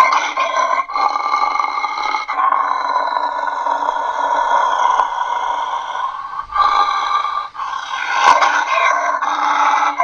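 A person roaring through an empty cardboard paper towel tube to imitate an allosaurus, unedited: a string of long calls with short breaks between them, the longest lasting about four seconds in the middle. A brief click comes a little after eight seconds in.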